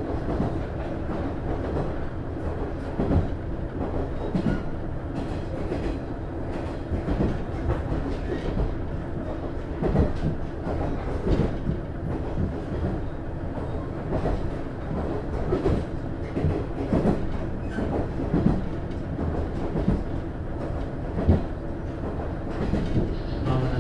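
Running sound inside a JR East KiHa 110 diesel railcar, its DMF14HZA diesel engine running under way, heard from the passenger cabin. A steady low rumble of engine and wheels on rail is broken by irregular knocks of the wheels over rail joints.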